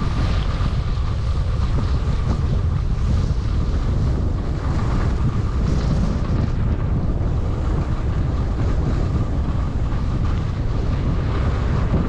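Steady wind buffeting the microphone of a skier moving downhill, with skis hissing over the snow.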